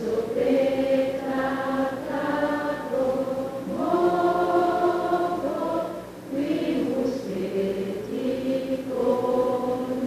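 A young male singer singing the national anthem in slow phrases of long held notes, with short breaks between phrases.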